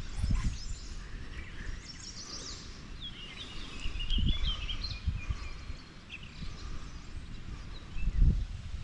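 Songbirds chirping and calling over a steady outdoor background. Short, low rumbling thumps come now and then, the strongest near the end.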